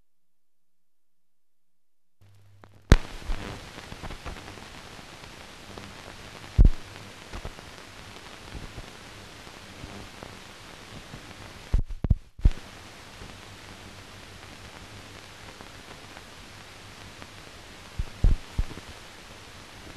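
Old film soundtrack noise: after a short silence it starts about two seconds in, a steady hiss with a low hum, broken by loud clicks and thumps several times and cutting out briefly around the middle.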